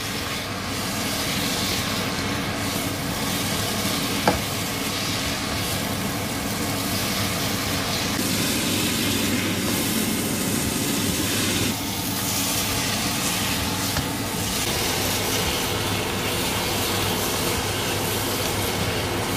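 Pork and beef pieces with onions and spice powder sizzling as they fry in a non-stick pot, stirred constantly with a spatula so the masala does not stick, over a steady hum. A single short click about four seconds in.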